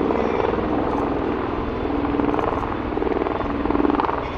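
MV-22 Osprey tiltrotor hovering low in helicopter mode, its two proprotors making a steady, rapid pulsing rotor beat.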